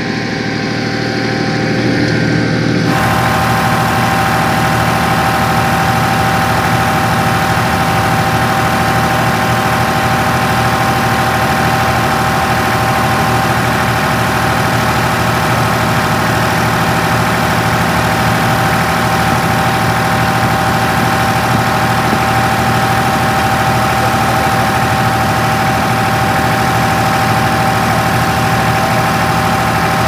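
Backhoe's diesel engine running steadily, getting louder about three seconds in, with a steady high whine held over the engine sound.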